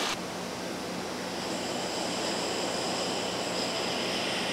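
Steady machinery noise with a faint low hum, and a high whine that comes in after about a second and a half: typical of a Space Launch System work platform's drive motors and rollers running as the platform extends.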